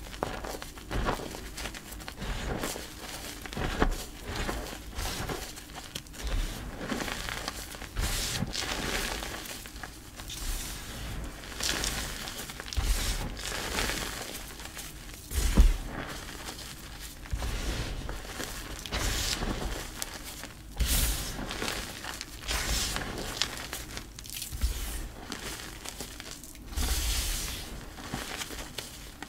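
Hands crushing and crumbling clumps of dyed pink powdery gym chalk, a run of irregular soft crunches and crackles as the pieces break and the powder sifts through the fingers, with one sharper, louder crunch about halfway through.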